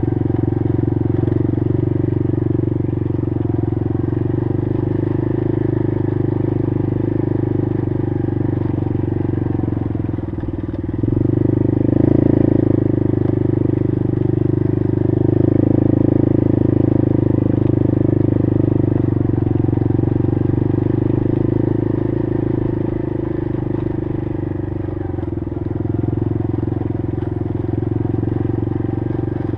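Honda TRX90 ATV's small single-cylinder four-stroke engine running steadily under way on a dirt trail. It gets louder twice around the middle as the throttle is opened, then settles back.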